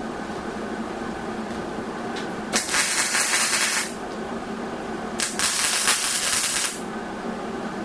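Two short bursts of welding-arc crackle, each about a second and a half, with a steady machine hum underneath: tack welds being laid on steel tubing.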